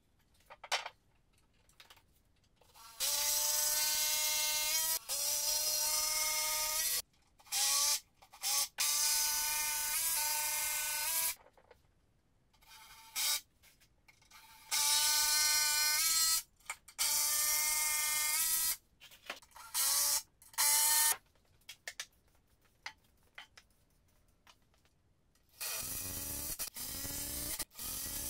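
Power drill running in repeated bursts of one to two seconds, its whine rising in pitch as each burst starts. Near the end it runs lower and its pitch sags, as under load.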